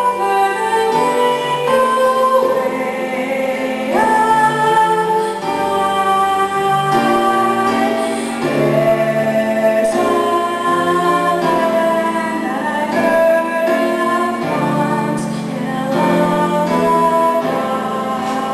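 A live recording of a sung solo with instrumental accompaniment: held, stepping sung notes over the backing throughout.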